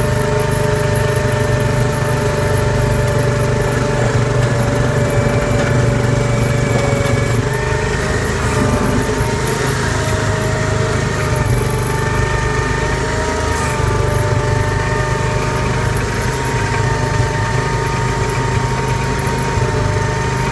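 Case 224 garden tractor's engine and hydraulic drive running steadily under load while plowing snow, heard from inside its cab, with a few steady whining tones that shift slightly in pitch.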